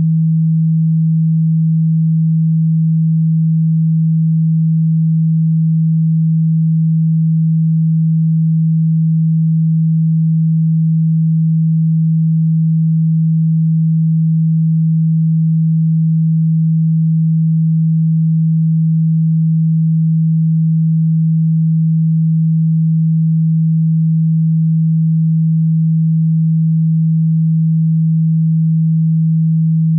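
A single steady, low pure tone, electronically generated, holding the same pitch and loudness throughout.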